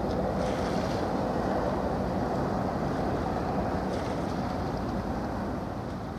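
Steady low outdoor rumble of wind on the microphone and open harbour water, even throughout with no distinct events.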